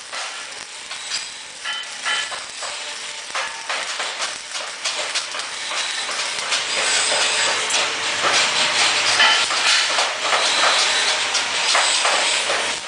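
Welding arc hissing and crackling, louder in the second half and stopping abruptly near the end.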